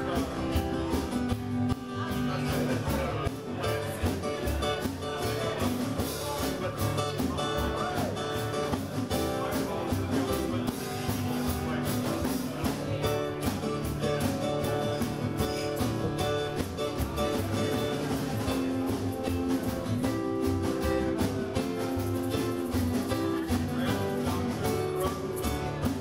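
Live band playing: strummed acoustic guitars over a steady drum beat.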